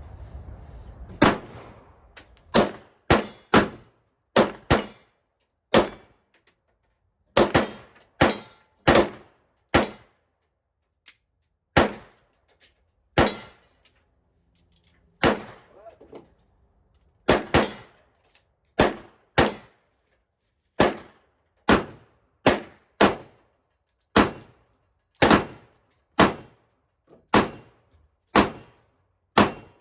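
Glock pistol being fired in about thirty single shots at an uneven pace, sometimes two or three in quick succession, sometimes with a pause of a second or two, each a sharp crack. It is a test-fire to see whether the freshly upgraded pistol runs.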